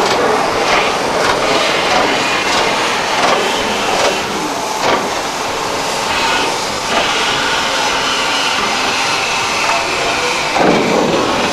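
Class 24 steam locomotive 24 009 moving slowly up to freight wagons: a steady hiss of steam with irregular clanks and chuffs in the first half, and a louder burst of noise near the end.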